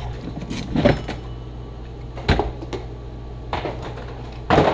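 Hand tools clicking and clinking on bolts being loosened, with single sharp clicks spread about a second apart and a denser clatter near the end, over a steady low hum.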